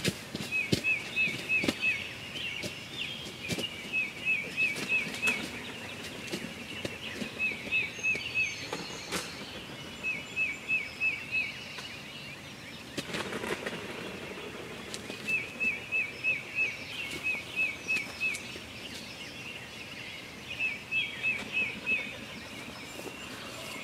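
A songbird singing the same short phrase of four or five quick whistled notes, repeated every couple of seconds with pauses in between, over faint scattered clicks and rustling.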